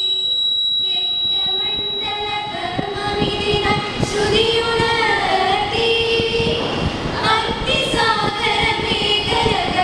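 A group of teenage girls singing a song together into stage microphones.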